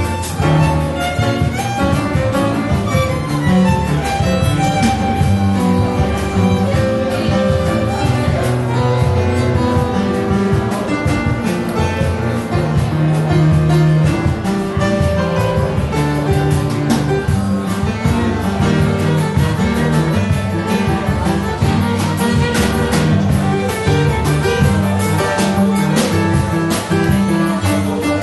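Live instrumental music: violin playing with piano, upright double bass and drum kit.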